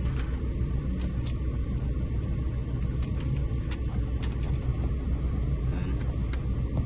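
Steady low background rumble, with a few light clicks scattered through it from the plastic laptop bezel being handled and fitted.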